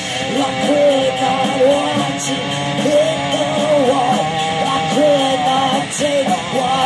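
Heavy metal band playing, with distorted electric guitars and drums; a melodic line bends and wavers over the top.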